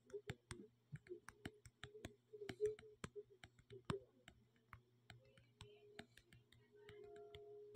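Faint, irregular clicks, a few a second, over a low steady hum.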